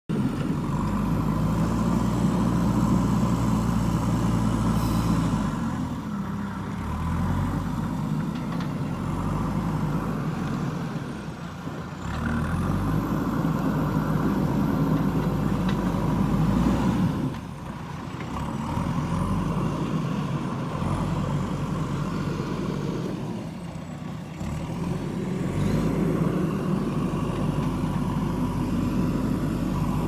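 JCB 3DX backhoe loader's diesel engine working under load as the front bucket digs and lifts sand and mud, easing off and picking up again about every six seconds.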